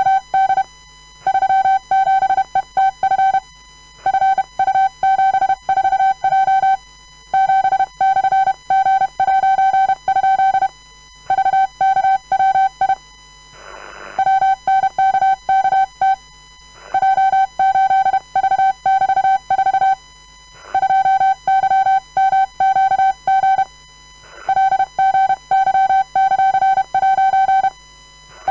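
Hand-keyed Morse code: a single steady beep tone switched on and off in dots and dashes at a comfortable speed. It comes in runs of characters with short pauses every few seconds. About halfway through, a brief rustle is heard in one of the pauses.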